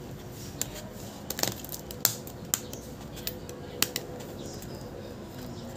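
Scattered small, sharp clicks and taps as the opened smartphone's parts are handled and pressed down by hand, the loudest about two seconds in and near four seconds.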